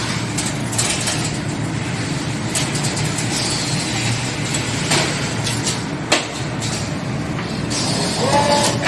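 Automatic stainless-steel S-hook wire forming machine running, a steady mechanical clatter with sharp clicks of the tooling and bursts of hissing air from its pneumatic cylinders. A short rising squeal sounds near the end.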